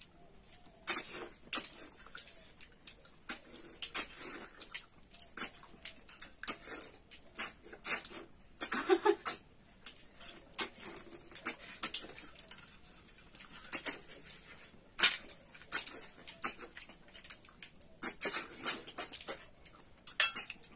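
Short, sharp sucking slurps and smacks, irregular and repeated, as cooked snails are sucked out of their shells by mouth while eating by hand.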